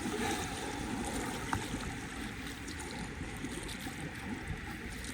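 Steady rush of river current flowing below the dam gates, heard from a kayak on the water.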